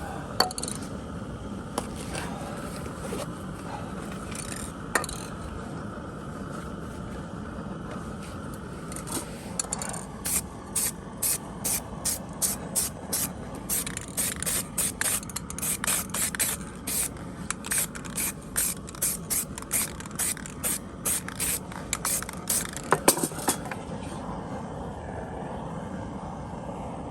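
Compressed-air paint spray gun hissing in a rapid run of short bursts, about two a second, starting about ten seconds in and stopping a few seconds before the end, over a steady low background hum. This is typical of clear coat being sprayed onto a freshly painted bumper.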